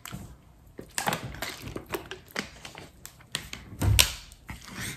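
Irregular clicks and crackles of a clear plastic bottle being handled, with a heavier thump about four seconds in.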